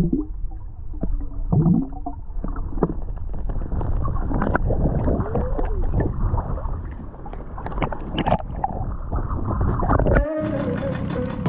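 Muffled lagoon water heard through an underwater camera: gurgling and sloshing with scattered knocks and clicks, and wavering low tones. About a second before the end the sound cuts out briefly and a steady tone comes in.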